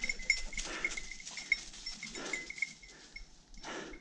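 Heavy, breathy exhalations about every one and a half seconds from a tired person walking uphill, with footsteps crunching through dry leaf litter.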